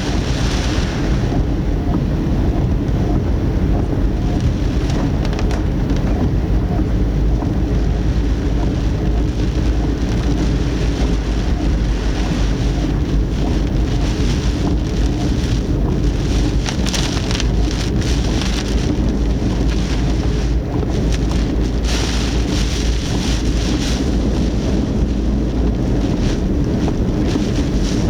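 Typhoon wind and heavy rain against a moving car, heard through a dashcam in the cabin: a steady low rumble under rushing rain noise, with stronger gusts of rain about two-thirds of the way in.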